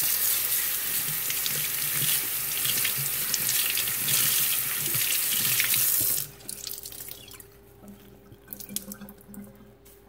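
Kitchen sink faucet running a full stream onto a rag held under it, then shut off abruptly about six seconds in. After that come quieter small sounds of the wet rag being squeezed out over the sink.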